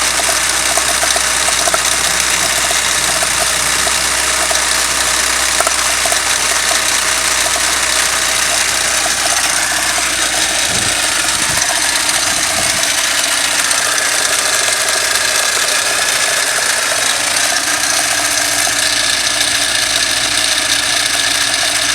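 Toyota 5A-FE inline-four engine running with a knock, which the owner puts down to play in the key of the crankshaft gear behind the pulley. Its note changes about halfway through.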